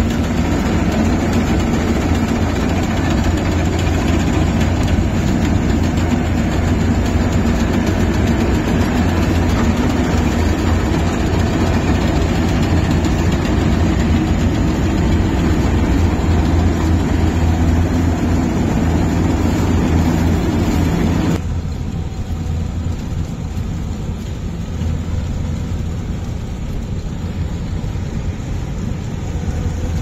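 Yanmar AW70GV combine harvester running steadily while cutting rice, heard up close. About two-thirds of the way through the sound drops suddenly to a quieter low engine hum, the machine now far off.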